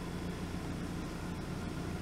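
Steady low-pitched noise with a faint hiss above it, unchanging throughout.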